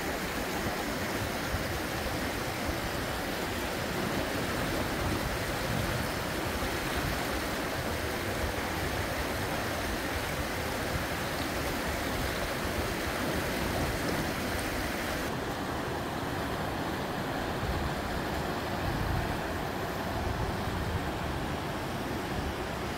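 River water rushing steadily over rocks in shallow rapids, an even hiss; the hiss becomes duller about fifteen seconds in.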